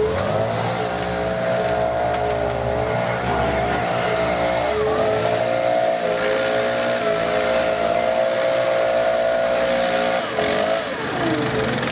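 Stihl backpack leaf blower's engine running at high throttle, dipping briefly about five seconds in and throttling down near the end. A wheeled excavator's diesel runs underneath.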